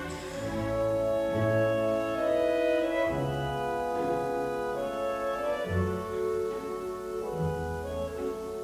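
Background music: slow, sustained chords with low bass notes changing every second or so.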